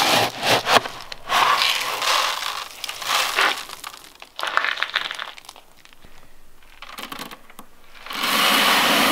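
Red plastic scoop digging into chicken-feed pellets in a plastic barrel, the pellets rustling and scraping in several bursts. Near the end, a scoopful of pellets pours into a wooden feeder hopper in a steady rush lasting about a second.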